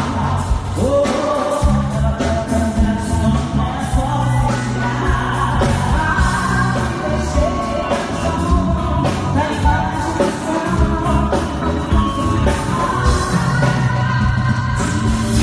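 Live pop music: women's voices singing into microphones over a drum kit and band, amplified through the stage sound system, with a steady beat.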